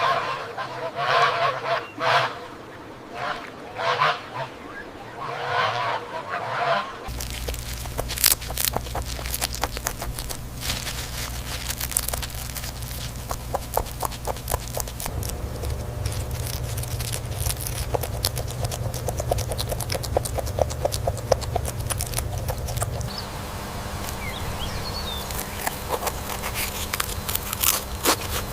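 Waterfowl calling in a string of about six loud honks over the first seven seconds. After an abrupt change, a dense run of scratching and rustling clicks over a steady low hum.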